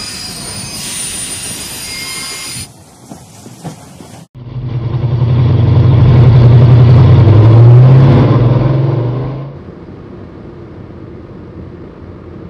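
A hiss lasting a couple of seconds, then a loud, low vehicle engine rumble that swells up, holds for a few seconds and fades away, as of a heavy vehicle passing.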